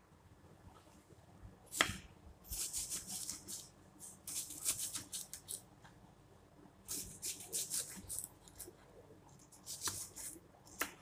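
Kitchen knife slicing a red onion on a wooden cutting board: crisp, crunchy cuts in four short runs, with a single sharp knock about two seconds in.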